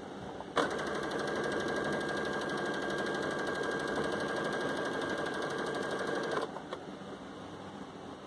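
Baby Lock Jubilant electric sewing machine stitching a folded-over hem at a steady fast speed, starting about half a second in and stopping about six seconds later, with a light click just after it stops.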